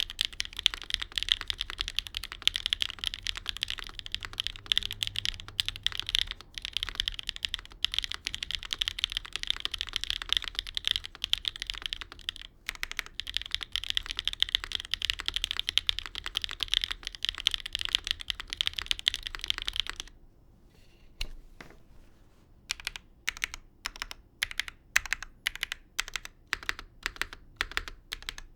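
Typing on a dnworks SEVEN mechanical keyboard with Wuque WS Arowana Gold linear switches, an aluminium plate, a dual O-ring mount and GMK keycaps. Fast continuous typing stops about two-thirds of the way through. After a brief pause, separate keystrokes follow at a slower, even pace of about three a second.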